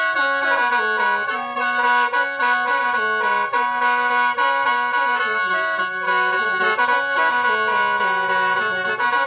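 Khaen, the Lao bamboo free-reed mouth organ, being played: a melody stepping up and down in the lower notes over steady, sustained drone notes, with no break.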